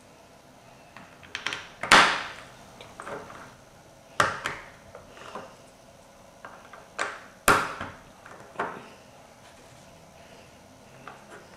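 Plastic LEGO bricks being handled and pressed together on a wooden table: a run of separate clicks and knocks, the loudest about two seconds in and again about seven and a half seconds in.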